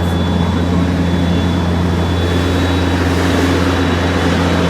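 Small aircraft's engines running steadily: an even, loud low drone with a faint high whine over it.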